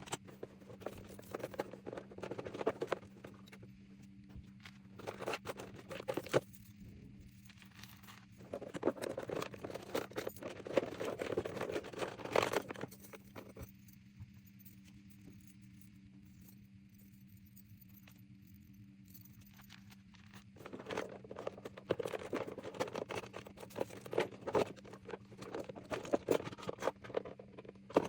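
Small objects being handled and set down on a table: quick taps, clicks and rustling in several bursts, with a quiet spell in the middle. A steady low hum runs underneath.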